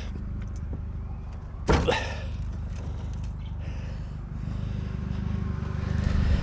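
Steady low rumble of road traffic that swells over the last two seconds as a vehicle approaches, with one short sharp sound about two seconds in.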